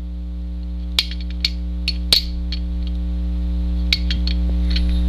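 Light metallic clicks and ticks of a Sig Sauer 1911's steel slide being worked onto the frame rails, several scattered taps over a few seconds. A steady electrical mains hum runs underneath and is the loudest thing throughout.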